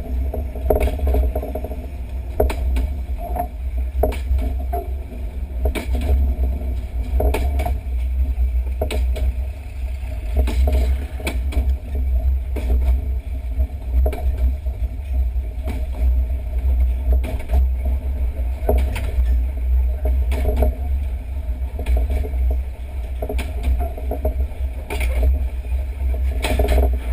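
Wind buffeting a microphone mounted on the outside of a moving electric train, a heavy low rumble, with the running train and irregular knocks from the wheels on the track.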